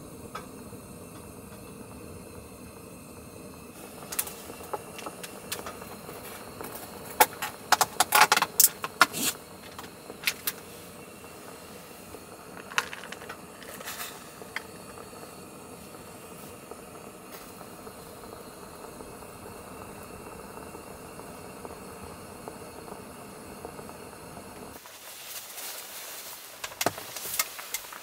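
Clay pot of rice porridge simmering on a cassette gas stove, with a steady hiss, while a clear plastic container crackles and clicks as it is opened and green onions are tipped in. The steady hiss stops abruptly near the end, followed by a few clicks of handling at the stove.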